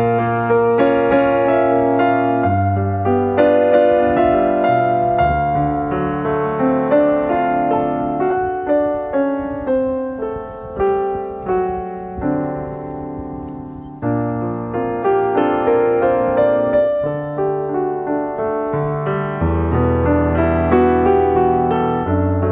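Piano music: struck chords and melody notes ringing over one another, with a short pause and a new phrase about two-thirds of the way through.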